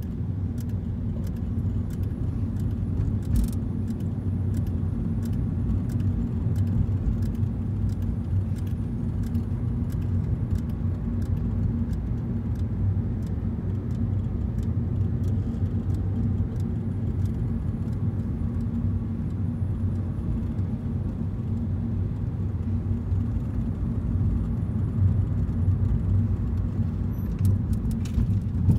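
Steady low rumble of a car's engine and tyres heard from inside the cabin while driving at low speed, with faint light clicks scattered throughout that cluster near the end.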